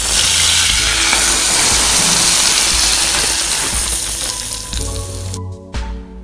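Hot spiced oil poured from a pan onto raw buffalo meat, onion and ground spices in a glass bowl, sizzling loudly. The sizzle cuts off abruptly about five seconds in.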